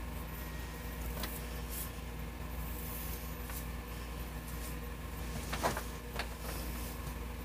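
Steady low hum and hiss of a room, with a few brief rustles and soft knocks close by; the loudest knock comes about three quarters of the way through.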